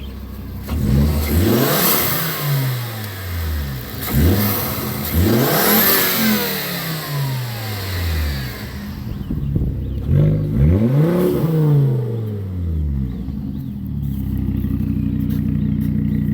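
Volvo S60 engine, freshly tuned up with new injectors, coil packs, spark plugs and fuel pressure regulator, revved in about three blips that climb and fall back. It settles to a steady idle for the last few seconds.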